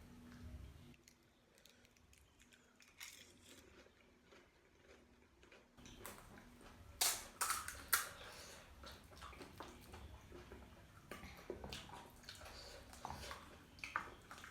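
Close-up eating sounds: crisp bites and crunches of crunchy snack food, then chewing, with the loudest crunches a couple of seconds after the middle.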